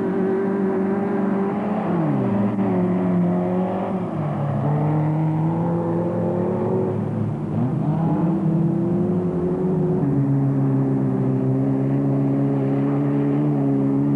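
Off-road race vehicle's engine running under load, its pitch dropping sharply about two seconds in and again near the middle, climbing back each time, then holding steady.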